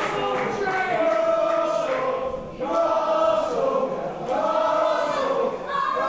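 Wrestling crowd chanting in unison, many voices singing a drawn-out chant with notes that rise and fall.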